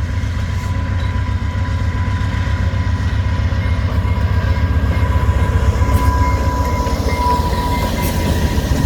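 Via Rail passenger train pulling out of the station: a steady heavy rumble of the locomotive and rolling cars with a thin steady whine above it, growing a little louder partway through.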